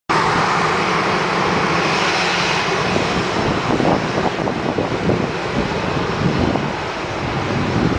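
Boeing 737-800's CFM56 jet engines running steadily at taxi power as the airliner taxis and turns away.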